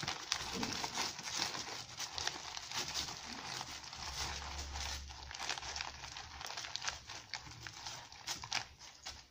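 Hands rustling a nylon tactical first-aid pouch and crinkling plastic-wrapped dressing packets: a continuous run of small crackles, rubs and clicks.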